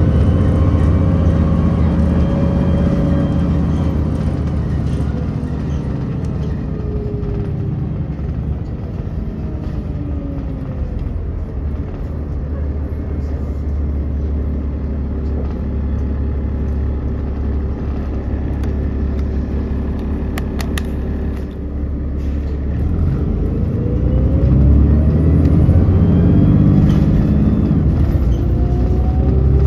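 City transit bus heard from inside on a ride: the engine and drivetrain drone falls in pitch as the bus slows over the first several seconds and runs steadily through the middle. It rises again as the bus accelerates near the end, with a brief cluster of clicks about twenty seconds in.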